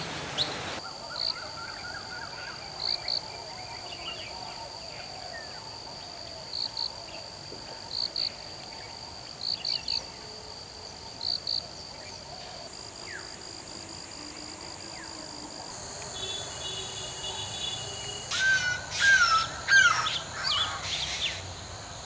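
Wild birds calling over a steady high-pitched drone. Short paired chirps repeat every second or two in the first half, and a burst of louder chirps and whistles comes near the end.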